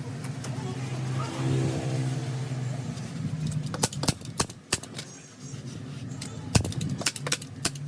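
A series of sharp clicks in two clusters, about a second and a half apart, over a steady low hum.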